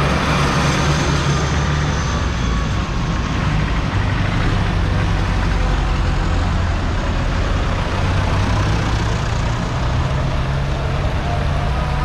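Diesel engines of tractors and lorries running as they drive slowly past one after another, a steady low engine drone with a sustained note underneath.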